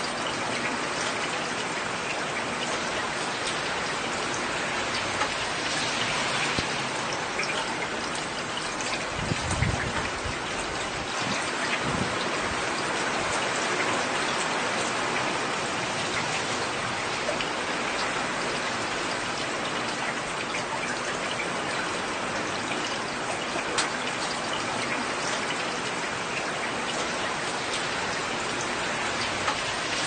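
Heavy rain pouring steadily, a dense hiss of drops with scattered sharper patters. About ten seconds in there is a brief low rumble.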